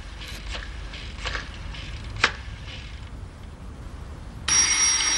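An office desk telephone starts ringing about four and a half seconds in, a loud steady ring that carries on to the end. Before it there are only a few faint clicks.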